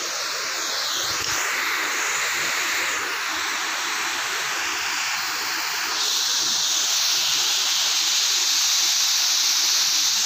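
Water pouring over a low concrete weir into a lake: a steady rushing noise, a little louder about six seconds in.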